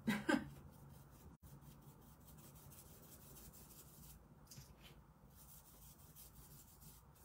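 Faint, intermittent scratchy rubbing from hands handling a paintbrush and paper at a craft table.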